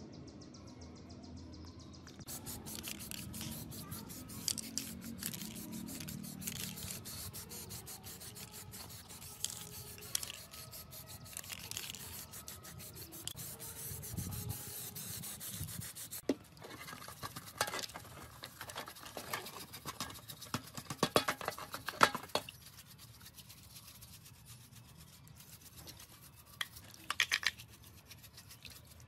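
Rubbing and scraping from hand work on saw parts, in a long run of short strokes that thin out about halfway through. Near the end, a brush scrubs rusty metal parts in a basin of water.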